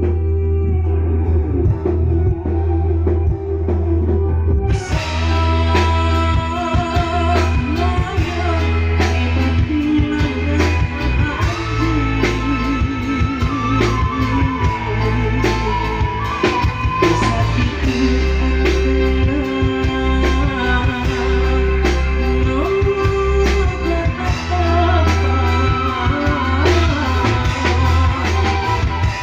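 Combo band music with a heavy steady bass and a moving melody line. The drums and cymbals come in fully about five seconds in.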